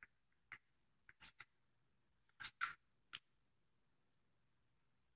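Faint light clicks and taps of ABS plastic 3D-printed trumpet pieces and a rubber band being handled and set down on a wooden table, about seven short taps over the first three seconds.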